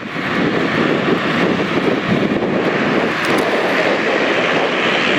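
A full field of MX Open motocross bikes at full throttle together, a dense, steady wall of engine noise that comes in abruptly: the pack accelerating away from the start.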